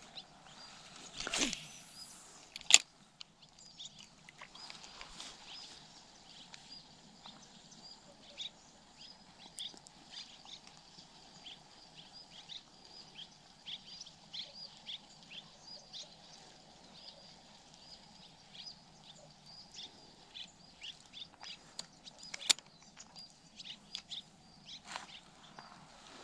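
A spinning rod swishes through a cast about a second in, and a sharp click follows a second later. After that, small birds chirp on and off, with another sharp click about three-quarters of the way through.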